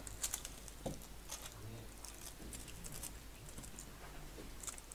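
Faint, scattered light clicks and rustles from small objects being handled at a workbench.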